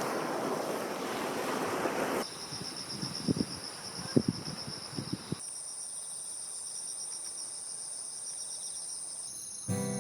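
Insects trilling outdoors, a high steady pulsing chirr that carries on through several cuts. For the first two seconds a rushing noise like surf or wind sits under it, and a few short soft knocks come in the middle; music starts near the end.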